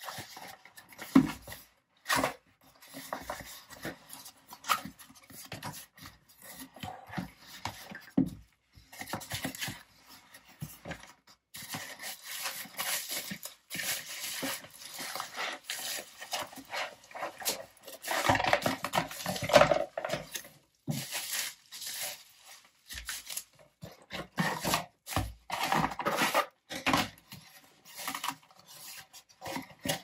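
Hands handling and opening a cardboard box: irregular rustling and rubbing of cardboard flaps with knocks, and the crinkle of bubble wrap as the wrapped item is pulled out, loudest around the middle.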